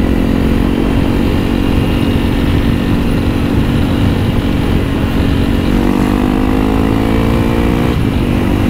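Honda CRF300L's single-cylinder four-stroke engine, breathing through a Yoshimura RS-4 full exhaust, running at a steady pitch on the move, then rising as the throttle opens about six seconds in and dropping sharply near the end. Wind noise on the microphone underneath.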